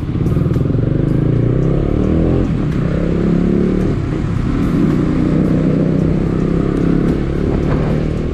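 KTM 250 Duke motorcycle's single-cylinder engine running as the bike rides off, its pitch rising and falling with the throttle.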